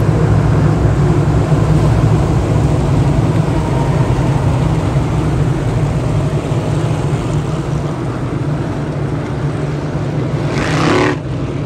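Dirt-track modified race cars' V8 engines running together in a steady loud drone. Near the end one engine comes through louder, rising in pitch, then falls away.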